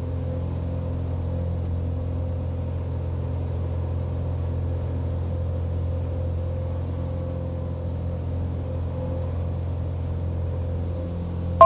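Cessna 182 Katmai's piston engine and propeller running steadily in the climb-out, a constant low drone inside the cabin.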